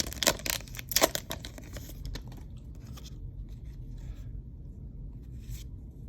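Trading-card pack wrapper being torn open and crinkled, with the sharpest tearing in the first second, then quieter intermittent rustling of wrapper and cards.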